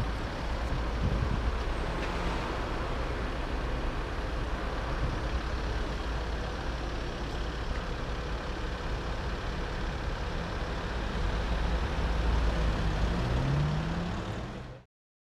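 Road traffic noise in slow-moving town traffic: a steady low engine rumble with road noise. Near the end an engine revs up, rising in pitch, and about fifteen seconds in the sound cuts off suddenly.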